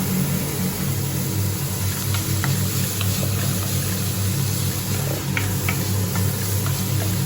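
Chopped onions sizzling as they fry in hot olive oil in a pan, with a few light clicks of stirring, over a steady low hum.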